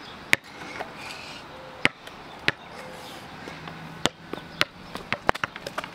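A small rubber basketball bouncing on a concrete sidewalk: single sharp smacks roughly a second apart, then a quick run of smaller bounces near the end as it settles.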